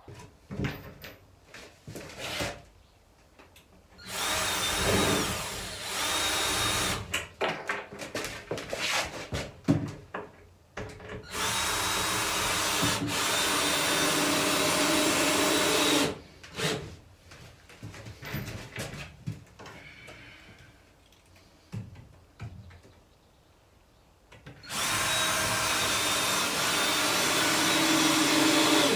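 Cordless drill driving screws into timber boards in three long runs of a few seconds each, with knocks and clatter from handling the boards between runs.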